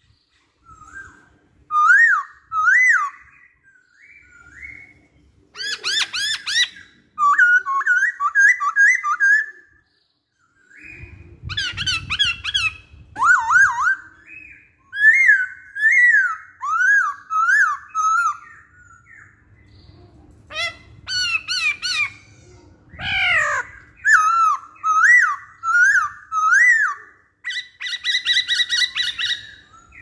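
Black-throated laughingthrush singing: runs of loud whistled notes that swoop up and down, mixed with harsh rasping calls, in phrases a few seconds long with a short pause about ten seconds in.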